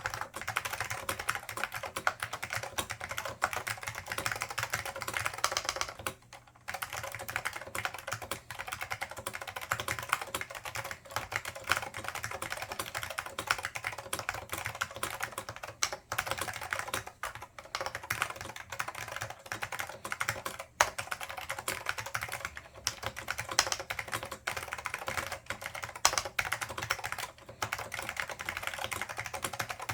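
Fast continuous typing on a Dell AT101 keyboard with lightly lubed Alps SKCM Black (Pine) switches and Alps doubleshot keycaps: dense clicky keystrokes, with a brief pause about six seconds in.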